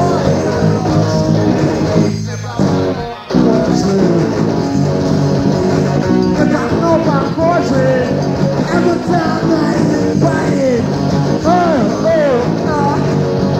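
Rock band recording: electric guitar over bass and drums. The music drops out briefly about two to three seconds in, then comes back with sliding, bending high notes through the second half.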